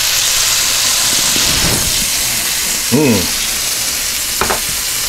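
Filet mignon steaks and mushrooms sizzling steadily on a hot cast iron grill plate over an induction cooktop.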